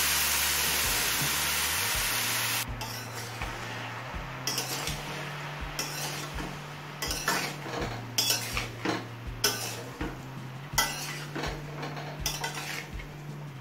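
Chopped water lily stems hitting hot spice paste in a kadai set off a loud sizzle that dies down after about two and a half seconds. Then a metal spatula scrapes and knocks against the pan in short, repeated strokes as the stems are stirred into the masala, over a quieter sizzle.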